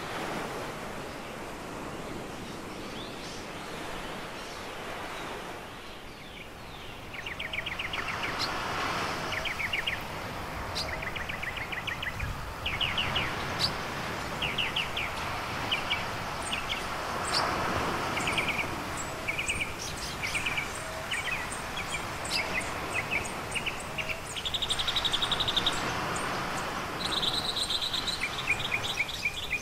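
Surf washing onto a sandy beach, a steady rush that swells now and then, with small birds singing from about a quarter of the way in: fast trills of repeated notes and sharp high chirps.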